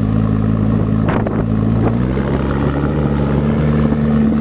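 McLaren P1's 3.8-litre twin-turbo V8 idling with a steady low note, stepping up slightly about halfway through. There is one short click about a second in.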